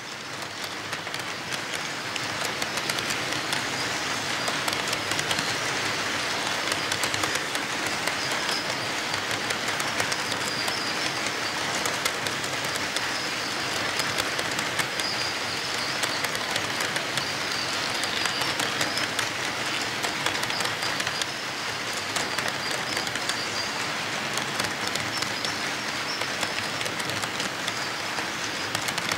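HO-scale model freight cars rolling past on track: a steady rolling rattle of the wheels on the rails, dotted with many small clicks.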